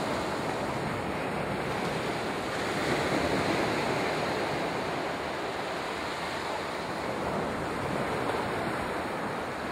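Small waves breaking and washing up a sandy beach: a steady rush of surf that swells about three seconds in and again near the end.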